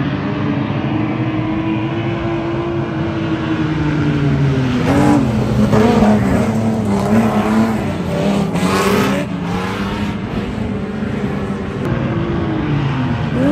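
A pack of speedway stock cars running laps of a dirt oval. Several engines run at high revs, their pitch rising and falling as the cars go through the turns and down the straight. The engines swell loudest as cars pass closest, about five to nine seconds in.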